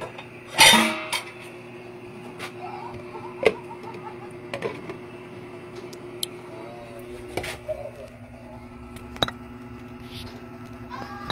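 A glass lid set down onto a metal cooking pot, a loud clatter with a short ring about half a second in, followed by a few small clicks and knocks over a steady hum.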